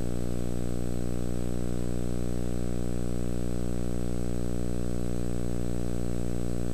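Steady low electrical hum with many evenly spaced overtones, unchanging in pitch and level: mains hum carried on an old videotape soundtrack.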